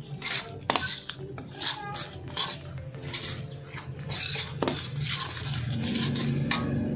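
Metal spoon scraping and clinking against a stainless steel wok as it stirs a thick spice paste, in repeated irregular scrapes and taps.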